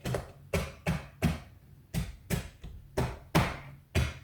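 Repeated knocks on a wooden window-frame board, about ten sharp taps in four seconds, driving it into a tight fit in the opening.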